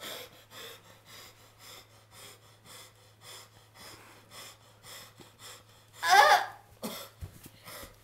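A person panting rapidly, about three quick breaths a second, with one short, loud vocal cry about six seconds in. A low steady hum runs underneath.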